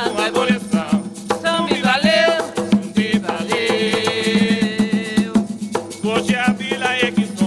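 Voices singing an Afro-Brazilian religious chant over steady drumming and a shaken rattle, with one long held note in the middle.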